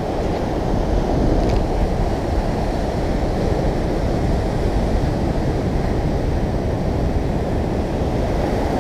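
Steady rush of ocean surf breaking and foaming against rocks, with wind buffeting the microphone.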